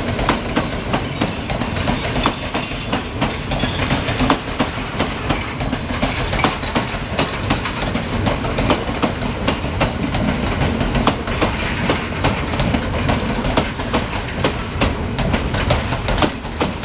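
Passenger coaches of an express train rolling past close by, a steady rumble of wheels on rail with many sharp clicks as the wheels cross the rail joints.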